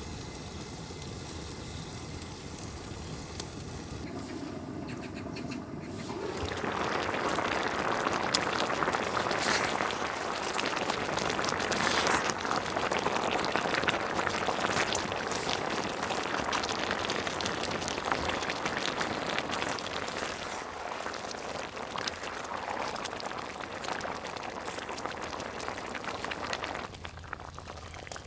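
Spicy braised chicken and webfoot octopus sizzling and bubbling hard in a cast-iron cauldron-lid pan, with scrapes of a wooden spatula stirring it. It starts about six seconds in, after a quieter stretch of low hiss, and eases a little near the end.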